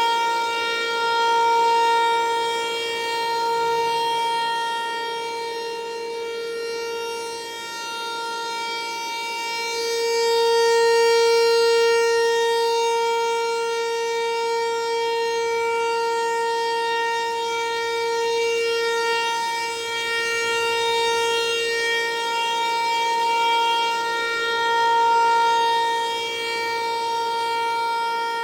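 ASC Tempest-135 rotating outdoor warning siren sounding a steady tone at full speed during a test. The pitch holds constant while the sound swells and fades in loudness as the head sweeps around.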